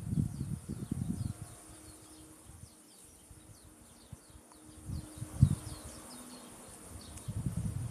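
Outdoor insects buzzing in a steady high-pitched drone, with many short, quick chirps over it. Low muffled rumbles come and go near the start, about five seconds in (the loudest), and again near the end.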